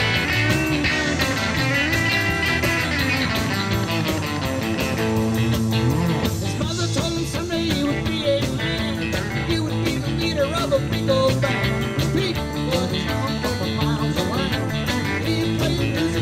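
Live rock band playing through amplifiers: electric guitars, bass and a drum kit, with a harmonica over them.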